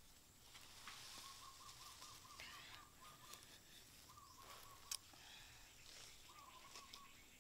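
Faint bird trill: three runs of rapidly repeated chirping notes, with soft rustling and one sharp click a little before five seconds in.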